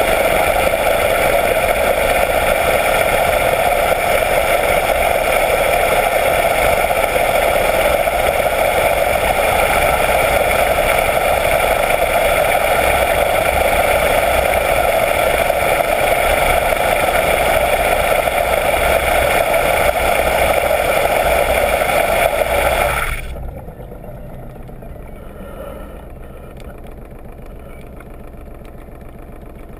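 A yacht's 16-inch two-bladed folding propeller and its engine, heard underwater: a loud, steady drone with many even tones while the propeller turns under power. About three quarters of the way through it drops away suddenly as the propeller stops, leaving a quieter engine sound running on.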